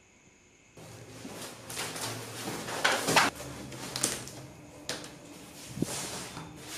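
Swishing and rustling of a floor mat being spread out and laid down by hand, with a few soft thuds; loudest about three seconds in, after a brief near-silence at the start.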